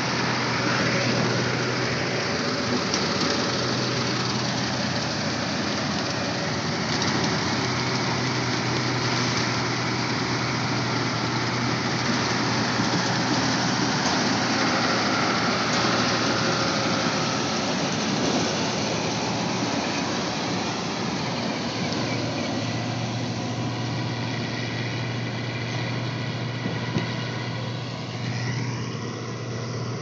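Combine harvester running steadily as it cuts standing wheat: a continuous engine hum under the dense noise of its header and threshing machinery, a little quieter over the last few seconds.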